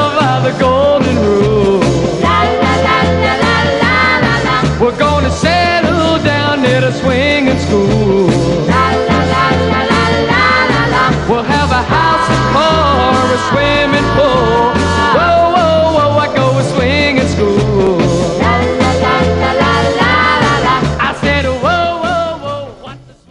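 Upbeat rock and roll music with a steady bass beat and no singing, fading out near the end.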